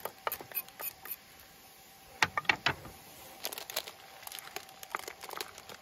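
Cooking clatter from a pan stir-fry: a spatula tapping and scraping in a frying pan, and a plastic seasoning container handled with crinkling. There are sharp clicks in clusters, the loudest bunch about two seconds in.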